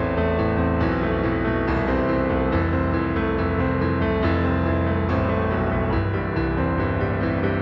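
Background music: a piano playing steady repeated notes at an even pace.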